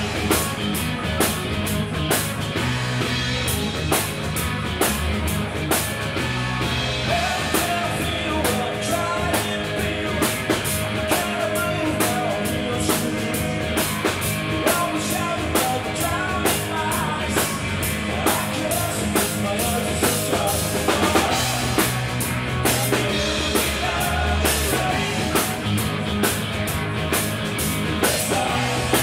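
Live rock band playing: electric guitars, bass and a drum kit keeping a steady beat.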